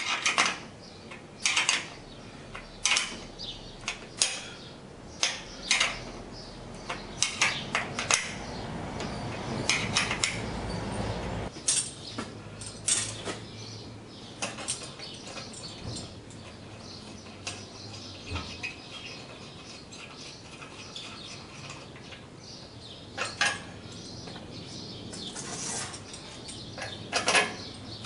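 Sharp metallic clicks and clinks of a wrench working nuts and bolts on brackets fitted to an aluminium tube. The clicks come thick and fast in the first half, thin out, then cluster again near the end; a low rumble runs for a few seconds in the middle and stops abruptly.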